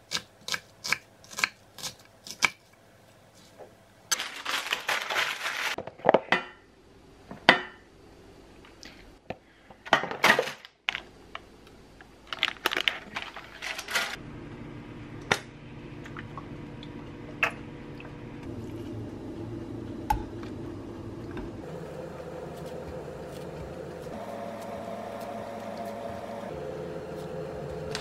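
Kitchen sounds: a knife chopping onion on a wooden cutting board at the start, then pots, dishes and utensils knocking and clattering. From about halfway through, a steady hum with a few held tones runs under occasional clinks.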